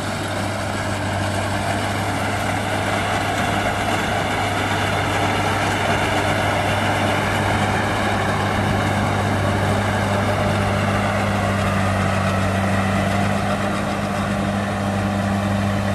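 Rice combine harvester running steadily in the field: a constant engine hum with a broad, even noise over it.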